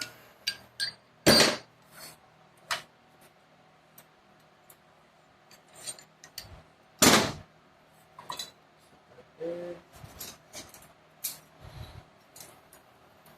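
Loose steel 4L60E transmission parts clinking and knocking as they are picked up and set down on a workbench: scattered light clinks, with two louder clanks about a second in and about seven seconds in.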